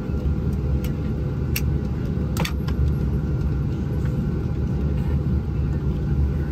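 Steady low cabin rumble inside a Boeing 737-700 taxiing after landing, its CFM56-7B engines at idle, with a few faint clicks about one and a half and two and a half seconds in.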